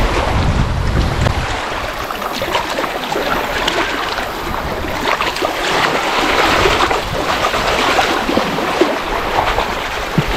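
Lake water lapping and splashing at the shoreline, a steady wash of many small splashes, with a gust of wind rumbling on the microphone in the first second or so.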